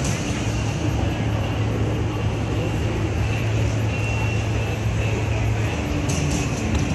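BMW R 18's 1802 cc air/oil-cooled boxer twin running steadily, with an even low hum.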